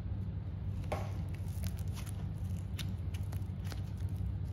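Orange slime mixed with foam clay being squeezed and kneaded by hand, giving scattered small sticky clicks and crackles, over a steady low hum.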